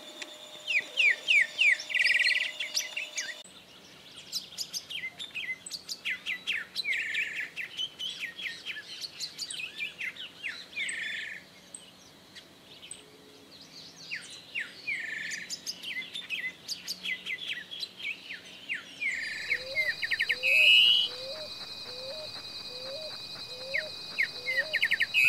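Greyish saltator singing: repeated phrases of quick, falling whistled notes, each ending in a longer, louder note, with short pauses between phrases. In the last few seconds a lower note repeats steadily about seven times underneath, and a steady high-pitched tone runs behind parts of the song.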